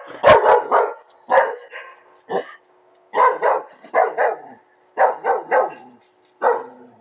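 A dog barks in quick runs of two or three short barks, separated by brief pauses.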